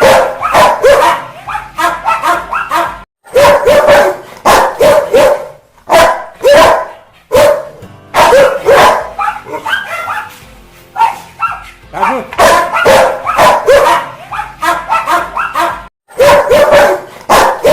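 Rottweiler barking angrily: loud barks over and over in quick runs of several, with brief breaks between the runs.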